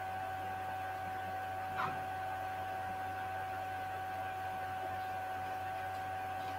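Room tone of an empty room: a steady low hum with a steady whine above it, and a faint short sound a little under two seconds in.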